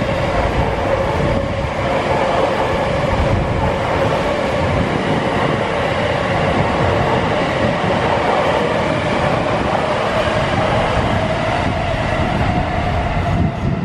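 JR East E257 series electric train running past with a steady rumble of wheels on rail, over which a whine climbs slowly in pitch.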